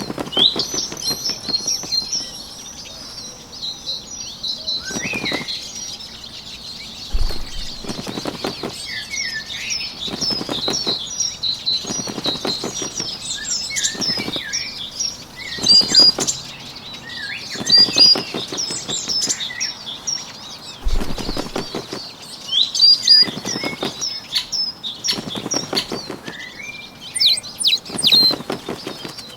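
Bird wing-flapping sound effect: short rattling bursts of wingbeats about every two seconds, over a continuous background of small birds chirping.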